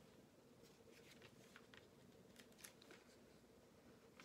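Near silence: faint room tone with a few light, scattered ticks and rustles of a paper brochure being handled.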